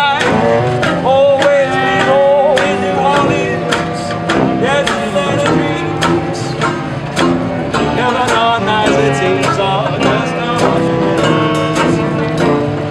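Swing jazz music with a steady beat and a wavering lead melody.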